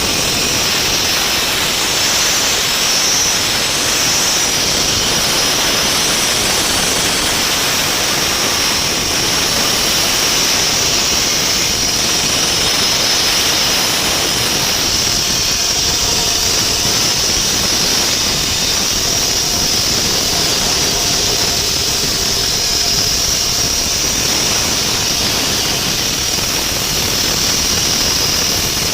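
Diamond saw cutting through a reinforced concrete beam: a steady, loud, high whine over a rushing noise, running without a break.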